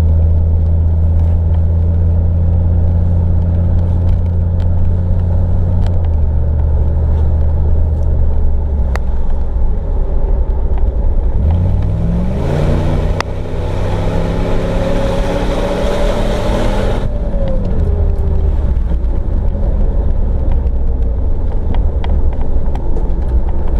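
A Jeep Grand Cherokee ZJ being driven, with a steady engine note that eases off about six seconds in. Halfway through the engine pitch rises as it accelerates, with a loud rush of noise for about five seconds, then it settles back to steady running and road noise.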